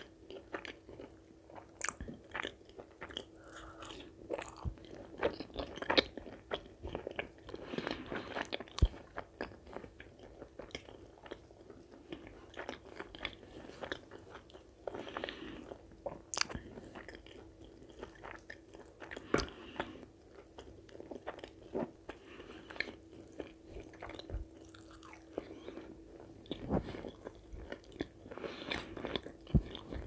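Close-miked chewing and biting of a person eating chicken curry with puri, full of irregular wet clicks and crunches. A faint steady hum comes and goes underneath.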